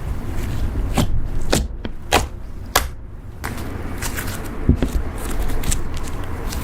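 Slime being worked by hand, giving a series of irregular sharp pops and clicks, about six in all, over a low rumble.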